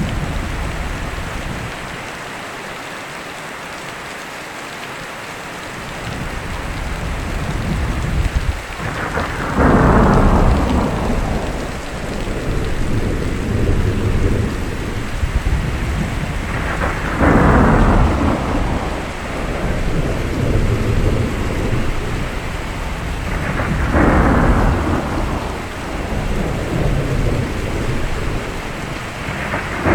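Steady rain with thunder rolling three times, about seven seconds apart, each roll starting suddenly and fading over several seconds; another begins right at the end.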